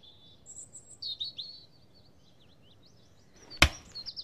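Birds chirping: a run of short, high chirps in the first half, then quiet. A single sharp click or knock comes about three and a half seconds in.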